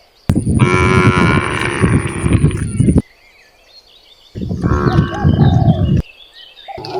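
Cattle mooing loudly: a long moo of nearly three seconds, a shorter one about four seconds in, and another starting near the end.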